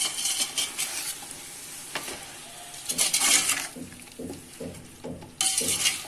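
A steel spoon stirring and scraping chopped tomatoes and spices around a steel pot as they sizzle in hot oil, with louder bursts of scraping about three seconds in and again near the end.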